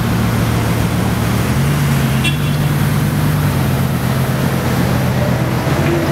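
Bugatti Veyron Grand Sport Vitesse's quad-turbocharged W16 engine running at low speed as the car drives slowly away. Its low, steady note steps up in pitch about a second and a half in.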